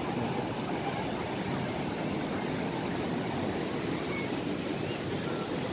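Ocean surf breaking along the beach and against a rock breakwater: a steady, even rush of water.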